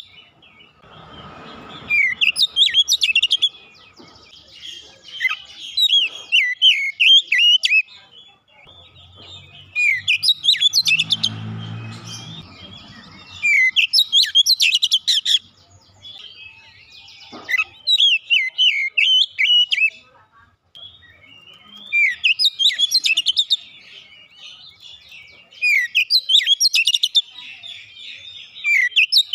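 Oriental magpie-robin in full song: loud, varied whistled and chattering phrases in bursts of one to two seconds, repeated every few seconds.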